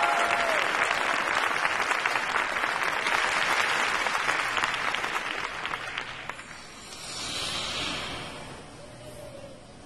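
A large crowd applauding, with a few whistles right at the start, dying away after about six seconds.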